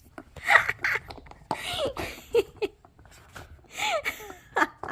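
Boston terrier whining in short high whimpers that fall in pitch, a few times, mixed with brief rustling and scrabbling noises.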